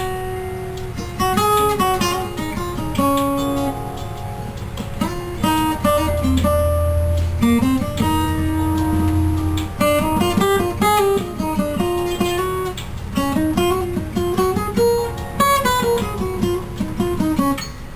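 Acoustic guitar music: plucked and strummed notes in a running melody with a steady beat.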